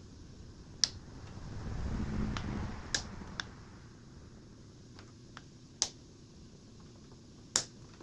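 Sharp clicks and taps, about five spread out, from tools handling the cutter of a homemade line boring bar as it is set to depth for the next cut. A low rumble swells and fades about two seconds in.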